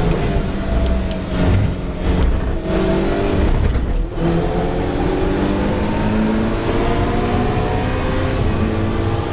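Ferrari 488 Challenge race car's twin-turbo V8 at speed on track: engine pitch falls for the first few seconds as the car slows, drops briefly about four seconds in, then climbs steadily as it accelerates.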